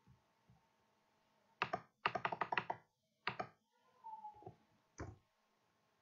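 Faint clicks of a computer mouse and keyboard: a few single clicks and a quick run of about eight clicks in under a second. A brief squeak comes about four seconds in.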